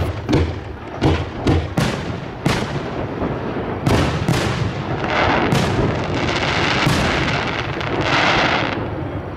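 Aerial firework shells bursting in a rapid series of sharp booms, about eight in the first half. These give way to stretches of dense crackling noise around the middle and again near the end.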